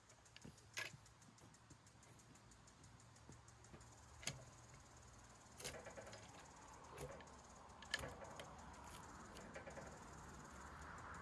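Near silence with a low steady hum, broken by a few isolated sharp knocks or clicks.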